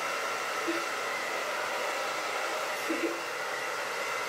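Handheld hair dryer running steadily: an even airy rush with a faint motor whine. It is blowing on lace glue spread over a wig cap at the hairline to dry it.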